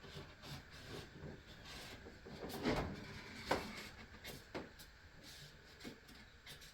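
A few light knocks and scrapes from a part being handled and traced with a marker, the sharpest knocks around three and three and a half seconds in.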